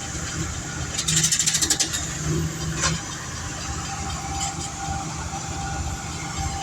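Diesel engines of railroad track maintenance machines running steadily during tie replacement, with a burst of rapid metallic clattering about a second in and a single sharp knock near the three-second mark.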